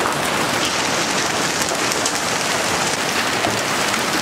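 Heavy hailstorm: large hailstones pelting down in a dense, steady clatter of countless small impacts.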